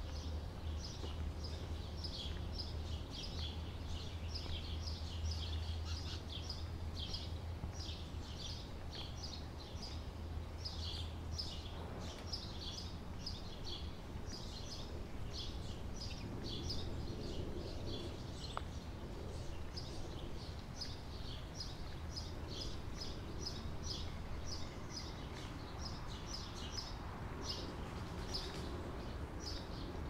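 Small songbirds chirping, short high calls repeating several times a second, over a low steady rumble that is louder for about the first twelve seconds.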